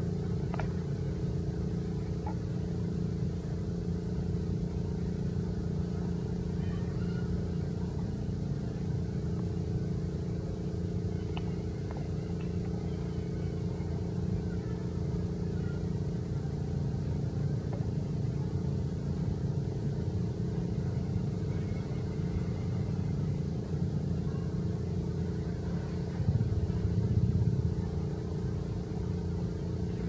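A motor running steadily: a low rumble with a constant hum, swelling louder briefly near the end.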